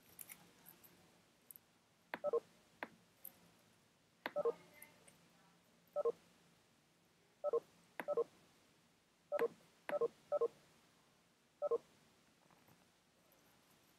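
Video-call notification tones: about a dozen short electronic beeps at irregular times, each starting with a click, signalling participants leaving the call.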